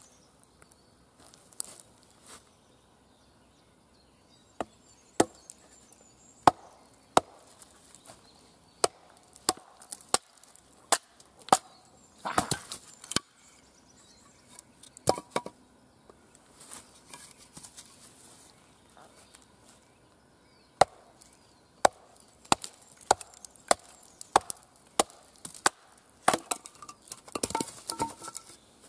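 A wooden baton knocking on the spine of a Cold Steel Recon Scout knife, driving the blade down through a log to split it: sharp, irregular knocks, some in quick runs, with pauses between.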